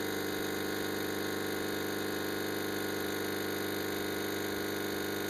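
Gaggia Classic espresso machine's vibratory pump running during an espresso shot, pushing water through the portafilter with a steady hum.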